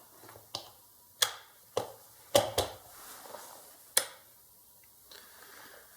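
A handful of sharp clicks and knocks, about six, the loudest about two and a half and four seconds in, from handling test leads and the circuit board on the workbench while hooking up power.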